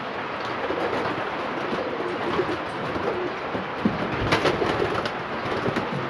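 Racing pigeons cooing in the loft, over a steady hiss of rain. A short clatter about four seconds in.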